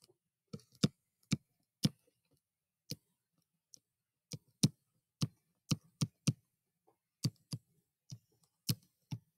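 Sharp, irregularly spaced clicks of a stylus tip tapping a touchscreen as words are handwritten, about a dozen and a half in all.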